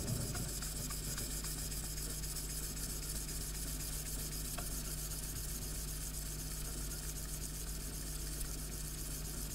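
Flat back of a steel chisel rubbed briskly back and forth on wet 1200-grit abrasive paper laid on a glass plate: a steady, scratchy hiss of polishing.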